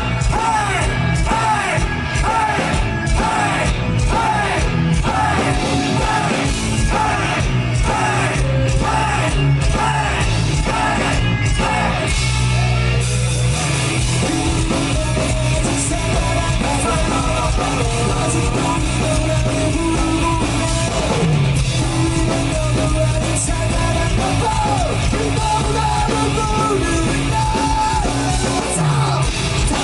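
Rock band playing live and loud, a stretch without sung lyrics. A repeated bending melodic figure runs for about the first twelve seconds, then gives way to steadier playing.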